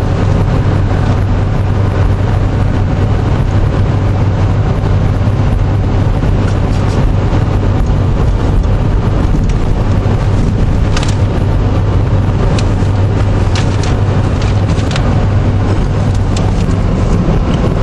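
Car cabin noise while driving on a wet road: a steady low drone of engine and tyres, with a few light clicks in the second half.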